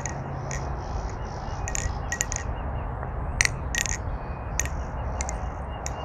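MachineWise Mayrn Lite aluminium balisong being flipped: irregular sharp metallic clicks and clacks as the handles and latch strike each other and rattle on the pivots.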